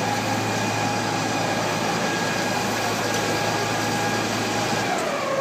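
Fire truck's engine running with a steady drone over street noise; about five seconds in, its pitch drops.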